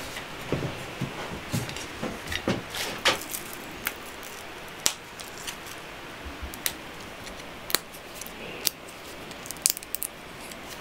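Dried pumpkin seeds handled in a steel bowl and cracked open by hand: irregular small clicks and knocks, busy for the first few seconds, then single sharp cracks every second or so.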